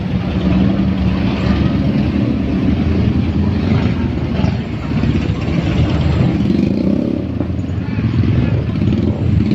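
Tour bus diesel engine running as the bus drives past close by, a loud, steady low rumble.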